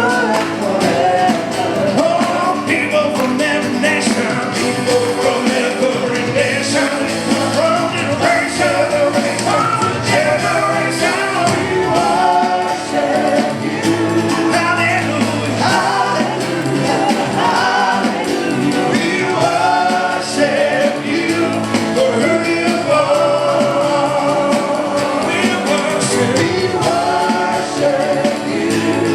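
Church worship band playing a praise song with voices singing over it, with a steady beat underneath.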